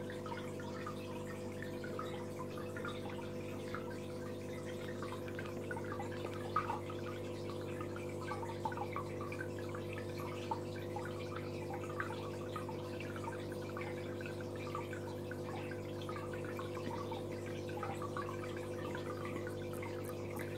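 Aquarium filter running: water trickling and dripping with scattered small bubbling plinks over a steady electric hum.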